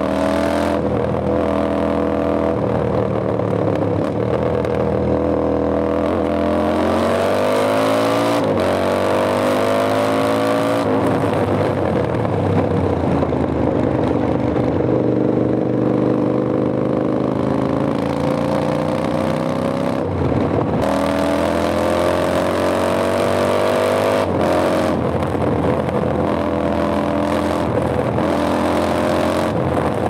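Royal Enfield Interceptor 650's 648 cc parallel-twin engine, running with its exhaust silencers removed, under way on the road. The revs climb steadily from about seven seconds in to about eleven and drop on a gear change, then hold for a long stretch, and climb again until a drop at about twenty-four seconds.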